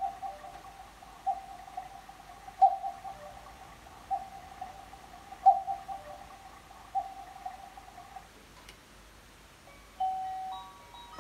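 Quartz cuckoo clock's speaker playing recorded cuckoo calls, six in a row about a second and a half apart. About ten seconds in, it starts a chiming melody.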